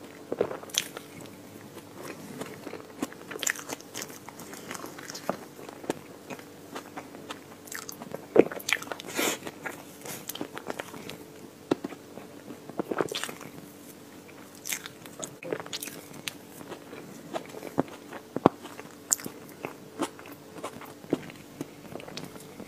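Close-miked eating of chocolate ice cream cake: bites and wet chewing with irregular crunchy crackles and clicks, a few louder bites scattered through, over a faint steady hum.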